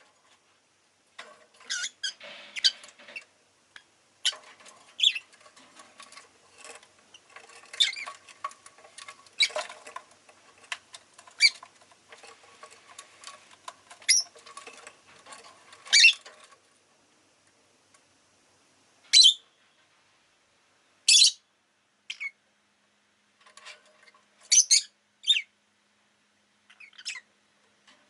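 Rosy-faced lovebird chirping. For the first half it is a busy run of rapid chatter and short chirps, then single loud, sharp chirps come every second or two.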